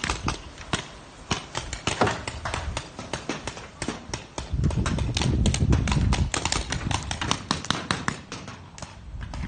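Paintball markers firing across the field: sharp pops, several a second, in irregular runs. A louder low rumble on the microphone runs for a second or so in the middle.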